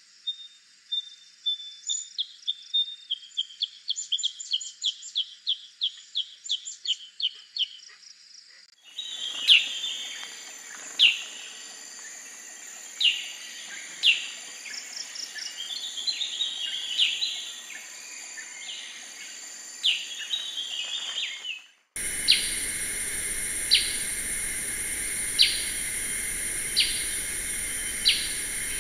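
Black-headed bulbul calls: quick runs of short, high, falling notes, then single sharp calls spaced a second or so apart. The track is pieced from separate recordings, with abrupt changes of background about a third of the way in and again near the three-quarter mark. The last part sits under a steady loud hiss.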